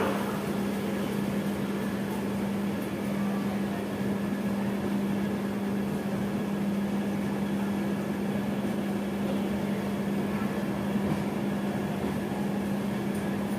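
Steady running noise of a passenger train pulling slowly out of a station, heard from an open coach door: an even hum over a low rumble with no clear change in speed.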